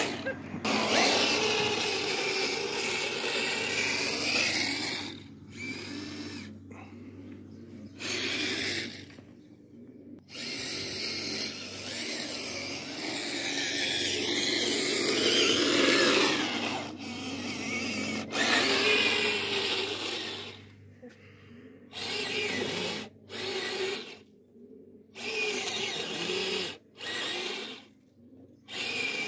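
Electric drive motors and gearboxes of a 1/16-scale RC Stuart light tank whining. They run in stop-start bursts with the pitch rising and falling, and cut out briefly many times in the second half.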